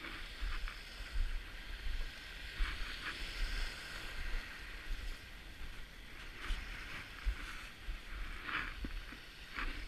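Small lake waves washing up and running back over a gravel shore, with wind rumbling on the microphone.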